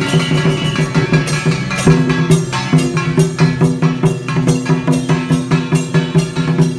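Music with drums and percussion keeping a fast, steady beat over sustained pitched instrument tones.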